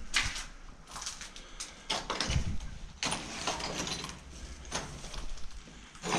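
Irregular footsteps scuffing on a gritty, debris-strewn floor, with a low thump about two and a half seconds in.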